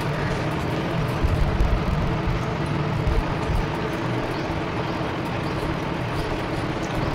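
Steady background noise with a low rumble throughout, with faint light clicks over it.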